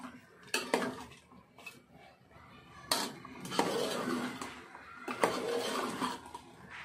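Metal spatula stirring chicken in gravy in a steel pot, with several sharp clinks against the pot and scraping along its sides in between.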